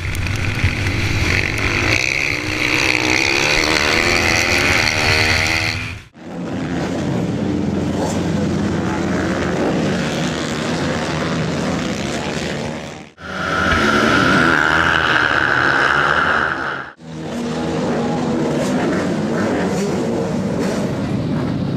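Flat-track racing motorcycle engines revving hard, rising and falling through the corners, heard in several short clips that cut off abruptly one into the next.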